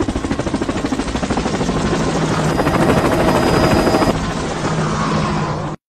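Rapid, steady chopping like a helicopter's rotor, matched to a cat whirling its head. A thin high whistle runs through the middle, and the sound cuts off suddenly near the end.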